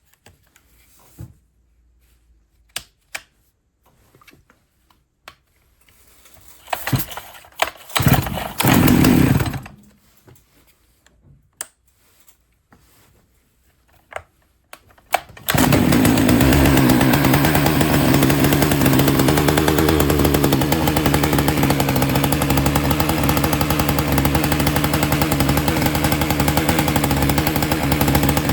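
Small two-stroke chainsaw: scattered clicks and knocks of handling, two short loud bursts about seven and nine seconds in, then the engine starts about fifteen seconds in and runs steadily.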